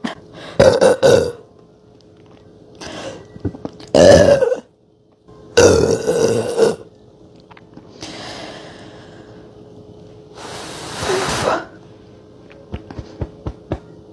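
A woman burping repeatedly, close to the microphone, after gulping a can of Sprite: three loud burps and a fainter one, the soda's fizz coming back up. Softer breathy, hissing sounds follow, with small clicks near the end.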